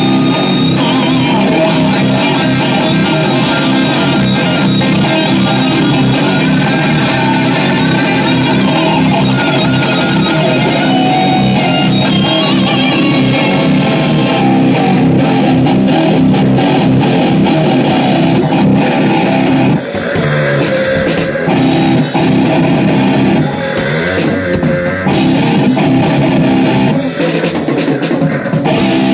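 Loud amplified rock jam on electric bass and electric guitar. It dips briefly a few times in the last third.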